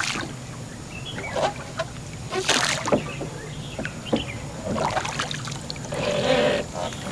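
A small hand-powered ferry boat being worked across a river: oar strokes splash and drip, with scattered knocks of the gear against the boat. About six seconds in there is a short wavering call.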